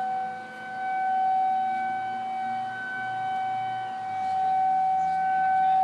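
Outdoor tornado warning siren sounding a steady, single-pitched wail, its loudness swelling about a second in and again near the end; it is sounding as a warning for an approaching line of storms.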